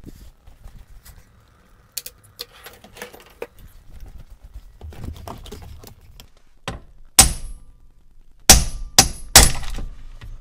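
Clatter of metal tools and parts, then four hard knocks with a short metallic ring, from about seven seconds in: blows used to free a Mitsubishi Pajero's steering wheel from its tapered shaft without a puller.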